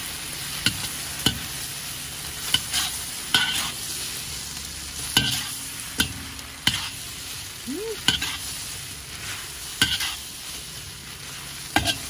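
Seafood spaghetti being stir-fried in a hot wok: a steady sizzle, with the metal spatula clanking and scraping against the pan every second or so as the noodles are tossed.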